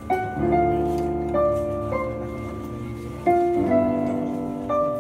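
Solo piano played at a slow pace: chords and melody notes are struck every half second to second and left to ring and fade, with a louder chord about three seconds in.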